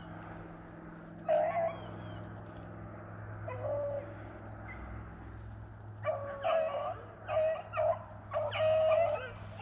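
Beagles baying while running a rabbit track: one bay about a second in, another a couple of seconds later, then a quick run of bays over the last few seconds.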